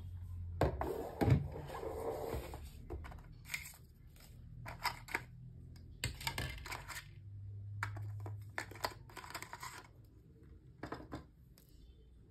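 Cardboard and paper earbuds packaging being handled: rustling and scraping in irregular bursts, with light taps and clicks, as card inserts and the paper-wrapped charging cable are lifted out of the box.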